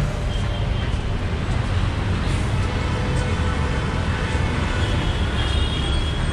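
Steady rumble of city street traffic.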